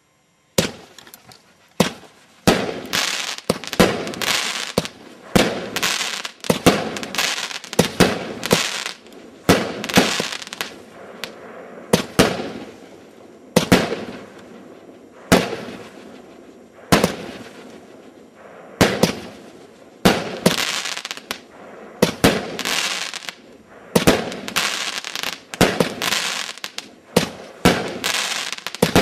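Prometheus firework firing a long series of loud bangs, about one every second or so, each trailing off over about a second before the next.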